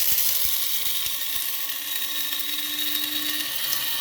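Electric blade coffee grinder running steadily, grinding a load of coffee beans.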